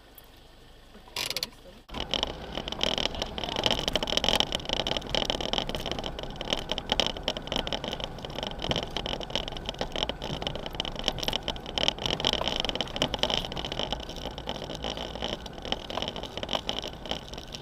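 4x4 vehicle driving up a rough dirt track: engine and tyre noise with a constant clatter of small knocks and rattles from the bumpy surface. It starts abruptly about two seconds in, after a quieter stretch with one short burst.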